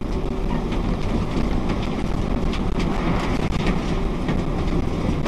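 Steady engine and tyre noise of a car driving, heard from inside the cabin, with a few light scattered ticks.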